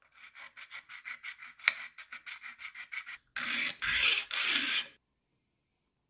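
Homemade sanding stick scraping back and forth across a die-cast model truck's base: quick, even short strokes, about five or six a second, then three longer, louder strokes, stopping about five seconds in.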